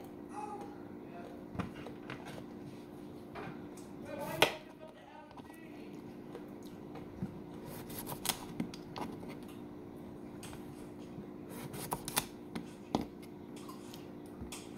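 Kitchen knife slicing a cucumber on a wooden cutting board: scattered sharp taps of the blade hitting the board, the loudest about four seconds in, with quick clusters of taps around the middle and near the end. A steady low hum runs underneath.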